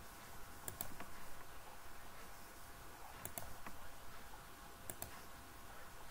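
Computer mouse button clicked three times: about a second in, a little after three seconds and near five seconds, each a sharp press-and-release pair of clicks. A faint steady hum lies underneath.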